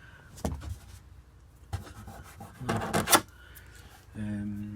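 Scraping and rubbing noises in a few short strokes, the loudest about three seconds in, then a brief hum of a voice near the end.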